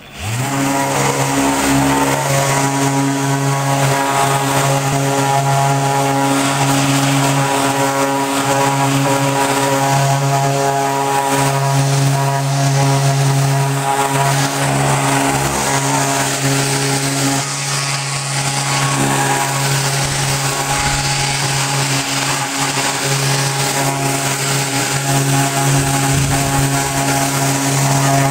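Festool random-orbit sander spinning up at the start, then running steadily with a loud, even hum as it sands a plywood panel.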